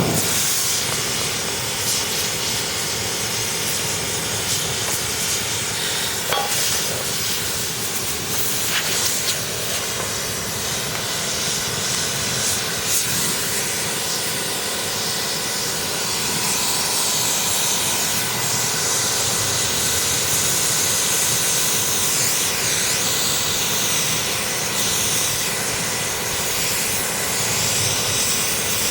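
Steady hiss of air blown through a two-stroke exhaust silencer as the unburnt oil and carbon clogging it burn off inside. It grows a little louder about halfway through.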